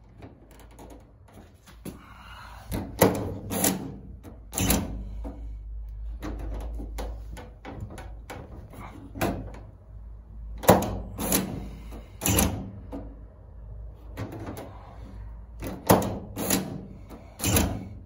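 Inside handle and exposed latch mechanism of a Mercedes T1N Sprinter sliding door, worked by hand. It gives about ten sharp plastic-and-metal clacks in clusters of two or three as the handle is pulled and released. This is a latch with an inside-release problem.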